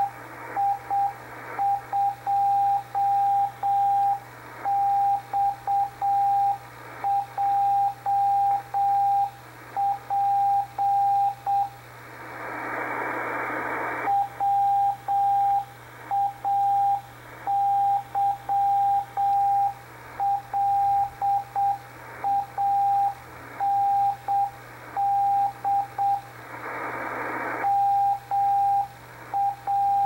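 Slow Morse code (CW) from experimental station WI2XJP received on shortwave: a single steady beat tone keyed in dots and dashes at about 7 or 8 words per minute, over receiver hiss and a low hum. It repeats its call sign and locator over and over, which seems like some kind of automatic transmission. The keying stops twice, about 12 seconds in and near the end, and the hiss swells in the gaps.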